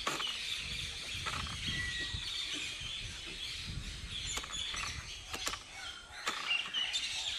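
Birds chirping and tweeting over an outdoor background hum, with a few faint clicks in the second half.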